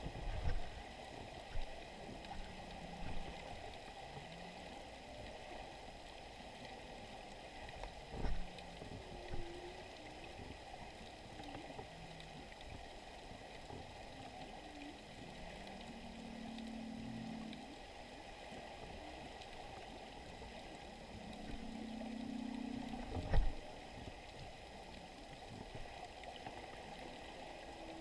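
Muffled underwater ambience picked up by a GoPro in its waterproof housing on the sea floor: a steady low hiss, with a few dull knocks and two soft low hums that swell and fade about two-thirds of the way through.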